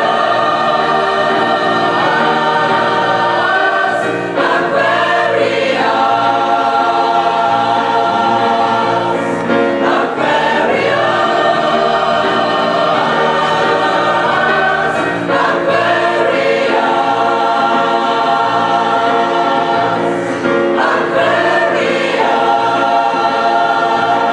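Mixed choir of men and women singing in long held chords that change every few seconds, accompanied by a grand piano.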